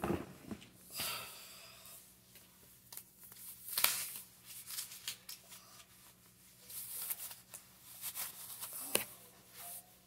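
Fabric rustling and scratchy tearing sounds, in several short bursts, as a black padded knee sleeve is handled and pulled over a leg.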